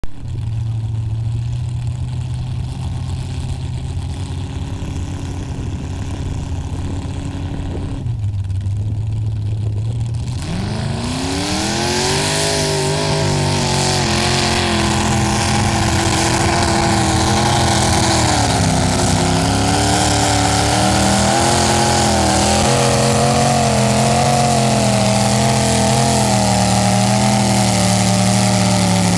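Mud bog pickup truck's engine running steadily, then revving up hard about ten seconds in as the truck launches into the mud pit. It stays at high revs through the run, its pitch dipping and climbing as the driver works the throttle through the mud.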